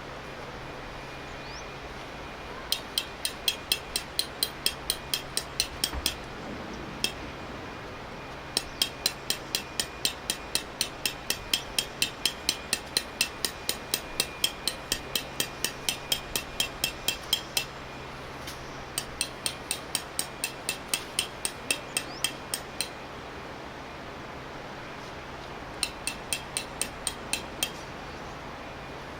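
Light, sharp clicking taps about four a second, in several runs of a few seconds each with pauses between.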